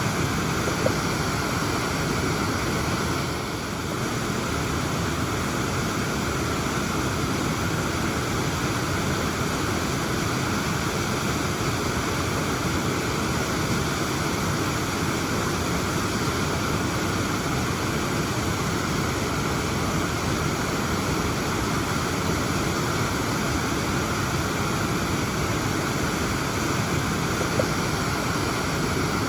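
Waterfall: a steady, unbroken rush of falling water, dipping slightly in level for a moment about three and a half seconds in.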